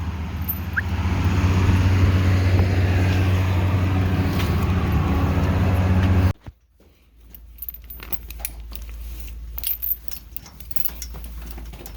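Tractor engine running steadily at about 1900 RPM with the PTO driving the silage unloading. About six seconds in it cuts off abruptly, and a quieter stretch of scattered clicks and rattles follows.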